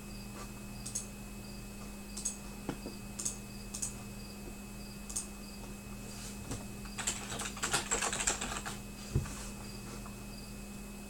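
Scattered light clicks, then a quick flurry of clicks and taps and a single sharp knock, like keys or plastic being handled at a desk, over a steady low electrical hum.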